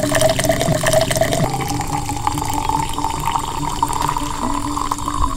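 Liquid poured in a steady stream from a metal pot into a drinking glass. The pitch of the pour rises slowly as the glass fills.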